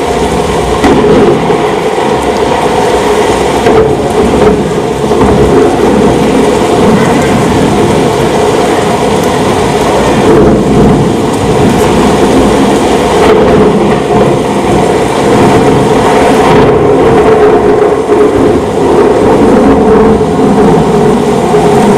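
Storm sound effect played through the hall's speakers: steady, loud rain with rumbling thunder.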